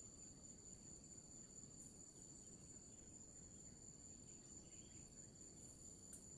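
Faint, steady chorus of forest insects: two unbroken high-pitched tones over a low background hiss.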